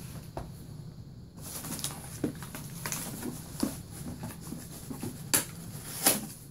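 Foam packing peanuts, tissue paper and small cardboard packets being rummaged through by hand in a cardboard box: rustling and crinkling with many small clicks, starting about a second and a half in, with two sharper, louder crackles near the end.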